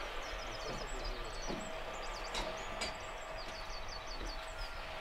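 Small birds chirping and twittering in quick runs of short notes over a faint steady hum. Two sharp wooden knocks come about two and a half and three seconds in, as a heavy timber piece is handled.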